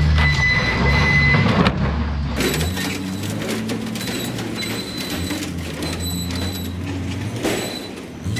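Semi truck's diesel engine running as the flatbed trailer pulls forward out from under its load of house trusses, with scattered knocks and clicks as the lumber stack slides off the deck.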